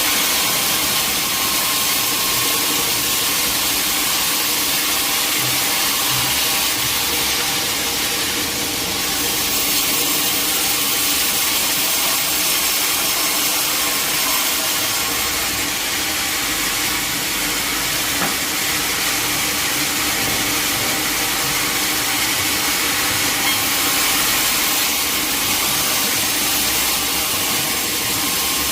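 Sawmill machinery running steadily: a constant high hiss over a steady hum.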